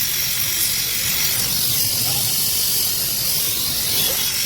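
Gas welding torch flame hissing steadily.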